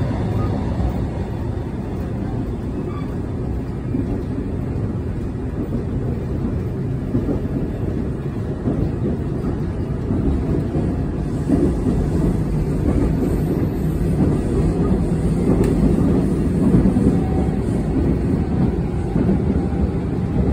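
Seoul Metro Line 1 electric train running along the track, heard from inside the car: a steady low rumble of wheels on rail that grows a little louder about halfway through.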